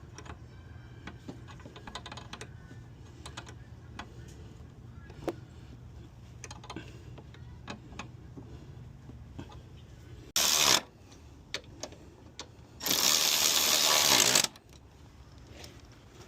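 Scattered small clicks and taps of hand tools on car parts during clutch hydraulic work, with two loud bursts of hiss: a short one about ten seconds in and a longer one lasting about a second and a half near the end.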